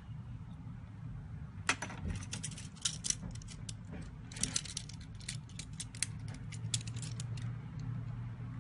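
Rapid run of small sharp clicks and taps from hand tools and small parts handled during phone disassembly, starting about two seconds in and stopping near the end, over a steady low hum.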